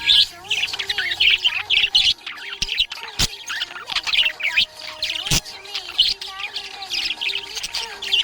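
Budgerigar chirping and warbling in a fast, busy chatter, with two sharp clicks partway through.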